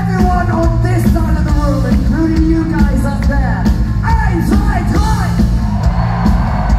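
Live rock band playing loudly through a concert hall's PA, with singing voices and some yelling over the music, heard from within the crowd.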